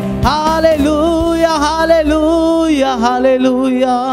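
Worship song: a voice singing held, gliding notes over steady sustained accompaniment.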